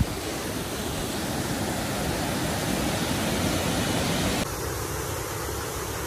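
Waterfall splashing down over rocks: a steady rush of water. About four and a half seconds in it changes abruptly to a thinner, softer rush.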